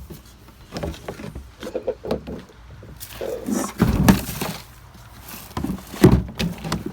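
Handling noises of gardening containers: scattered knocks and bumps, with a longer rustling, scraping stretch about three seconds in. The loudest knocks come about four and six seconds in.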